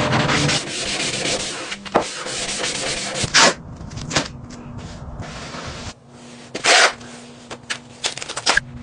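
Sanding: a run of uneven rubbing strokes, the loudest two about three and a half and seven seconds in, over a faint steady hum.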